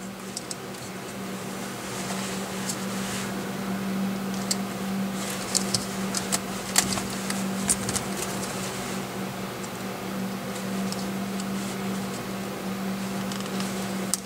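Scattered light clicks and taps of a pick working the plastic locking tabs of a turn signal switch wiring plug, freeing the wires, over a steady low hum. The clicks come in the first half and stop about halfway through.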